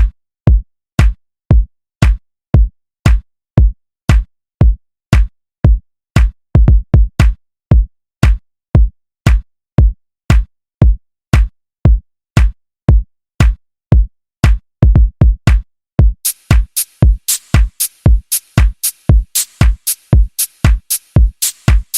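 Electronic dance music: a drum-machine kick pounding about twice a second, with a crisp hi-hat layer coming in about three-quarters of the way through.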